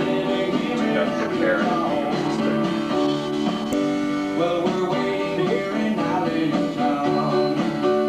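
Country-style song with guitar and singing playing on a radio, thin in the bass.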